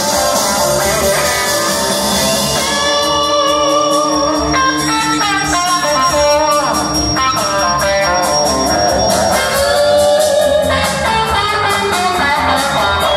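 Live blues-rock band playing an instrumental passage: electric guitar to the fore with bent notes, over bass guitar and a steady drum beat.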